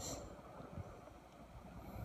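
Wind buffeting the microphone: a faint, irregular low rumble over a steady hiss, with a brief high hiss at the very start.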